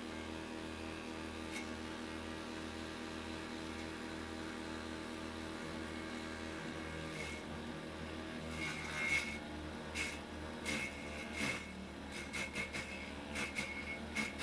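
Homemade vegetable chopper driven by a water-pump motor running steadily with a grass-cutter blade. From about halfway in, irregular sharp cracks and bursts join the steady hum as the blade strikes material fed into it.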